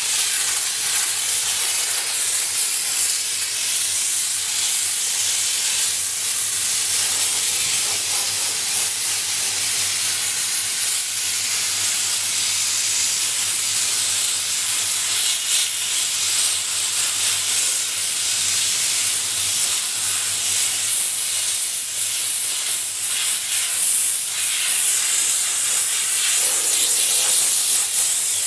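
Steam car-wash gun hissing continuously as it jets steam onto a car, a steady high hiss that dips and swells a little.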